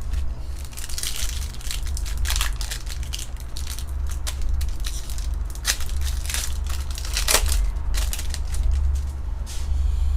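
Trading card pack wrappers crinkling and tearing in the hands as packs are ripped open: a run of irregular crackles over a steady low hum.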